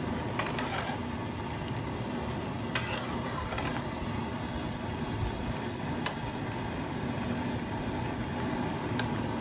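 Metal slotted spatula stirring soaked rice through boiling liquid in an aluminium pot, with a few sharp clicks as it knocks the pot, over a steady rushing noise from the boil and the gas burner beneath it.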